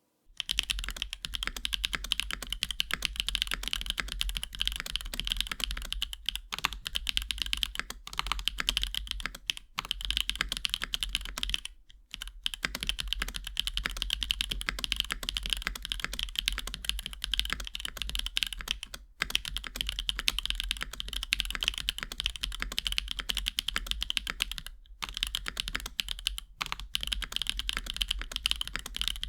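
Typing test on a mechanical keyboard fitted with RAMA Works DUCK linear switches, whose long-pole stems give a louder bottom-out. A fast, continuous run of keystrokes, broken by a few short pauses.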